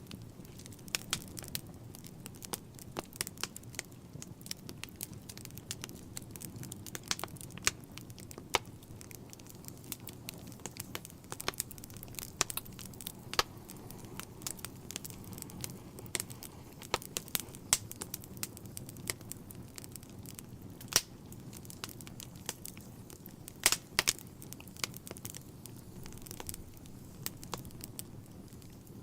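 Wood fire burning in a fireplace: irregular sharp crackles and pops over a low steady rumble of the flames, with a few louder pops in the second half.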